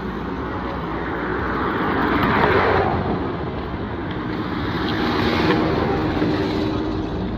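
Road traffic: two vehicles pass close by one after the other, each swelling up and fading away, the first about two and a half seconds in and the second about five and a half seconds in, with an engine hum under the second.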